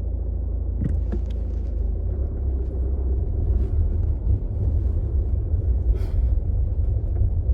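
Low steady rumble of a car heard from inside the cabin, stopped in a traffic queue; about two seconds in the rumble grows rougher and a little louder. A few faint short ticks sound over it.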